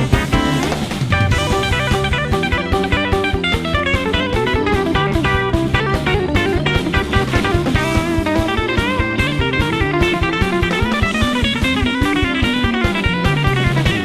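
Background music: guitar over a drum kit with a steady beat.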